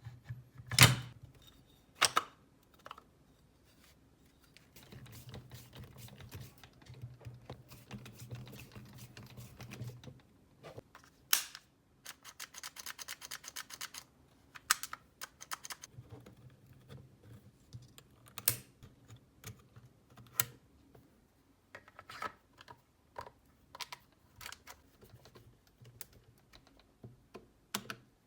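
Irregular clicks, taps and knocks of hard parts being handled, with a quick rattling run of clicks about halfway through.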